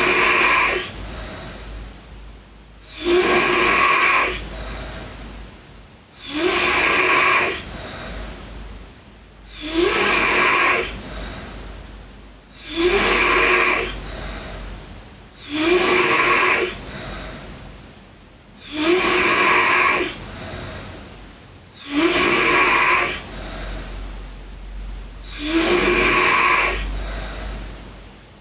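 A sleeping girl snoring: nine loud snores about three seconds apart, each lasting about a second, with a quieter breath between them.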